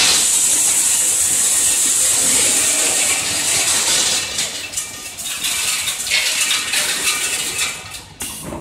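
Feed pellets running along a belt conveyor and pouring into a packing machine's hopper: a dense hissing rush of many small impacts that thins after about four seconds into a quieter, irregular rattling clatter.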